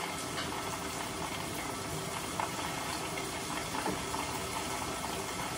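Hot oil sizzling steadily as food deep-fries in a pan, a constant hiss with faint crackles.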